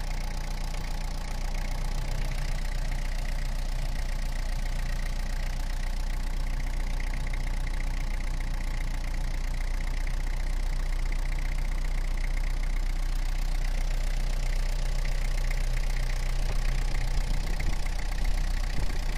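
1988 Toyota 4x4's diesel engine idling steadily with its oil filler cap off, while Seafoam is poured into the oil filler hole; it gets a little louder and rougher near the end. The owner takes what the open filler gives off as blow-by.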